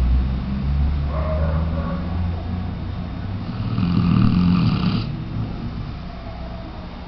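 Weimaraner dog snoring with a steady low rumble. A louder snore swells from about three and a half seconds in and cuts off suddenly at about five seconds.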